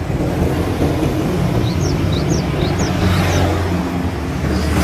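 Steady low rumble of motor vehicles, with a run of short high chirps about two seconds in.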